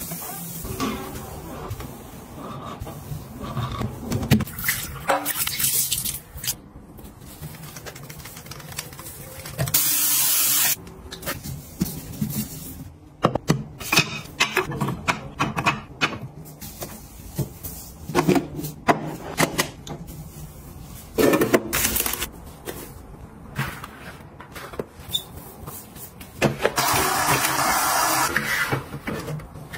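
Bathroom cleaning and handling sounds: a string of light knocks and clicks as bottles and items are picked up and set down around a ceramic sink, with a loud hiss lasting about a second a third of the way in. Near the end a gloved hand wipes the vanity shelf with a sponge, a steady rubbing for about three seconds.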